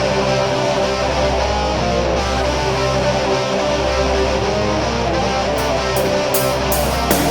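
Distorted electric guitar music with a steady bass, loud and dense; drum and cymbal hits come in near the end.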